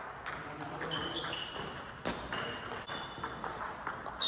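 Table tennis ball clicking off paddles and the table: a string of sharp, ringing pings at an uneven pace, the loudest near the end.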